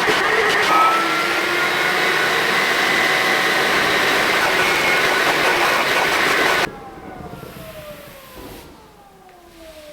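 HYLA water-filter vacuum cleaner running with a loud, steady rush. It is switched off about two-thirds of the way in, and its motor whine then falls slowly in pitch as it spins down.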